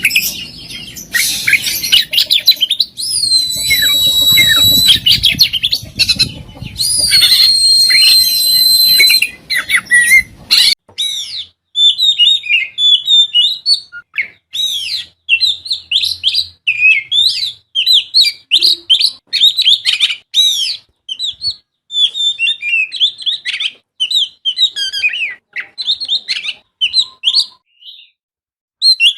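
Songbird song from a masteran, a recording played to train oriental magpie-robins (kacer) to sing: long, level, high whistles mixed with quick chirps over a noisy background. About eleven seconds in, it switches abruptly to a clean, continuous run of rapid, varied chirps and trills.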